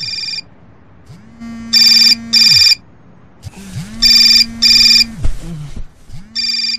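Electronic alarm clock beeping: pairs of short, high-pitched beeps repeating about every two seconds, loudest in the middle of the stretch. A low tone swells in and dies away beneath each pair of beeps.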